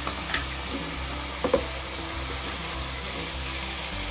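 Sliced onions and whole spices sizzling steadily in hot oil in a pot while being stirred with a silicone spoon, with a few light knocks of the spoon against the pot, the loudest about a second and a half in.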